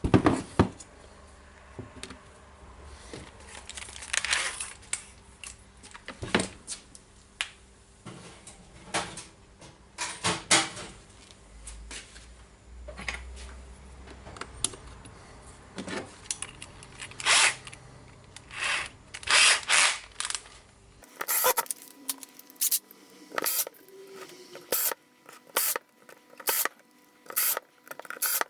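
Plastic power-tool housing and small parts being handled and fitted together by hand: scattered clicks, taps and rattles, more closely spaced near the end.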